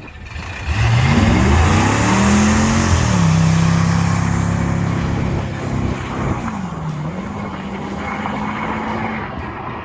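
Car engine revving up, then running at a steady pitch, with a short drop and recovery in revs about seven seconds in.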